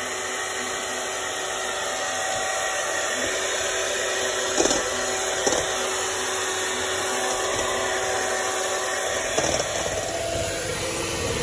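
Electric hand mixer running steadily in thin cake batter in a stainless steel bowl, with a few brief knocks along the way.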